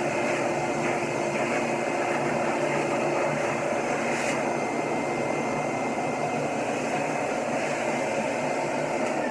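Hose-fed dog grooming dryer blowing forced air into a wet dog's coat: a steady rushing motor hum with a faint high whine, driving bulk water out of the fur.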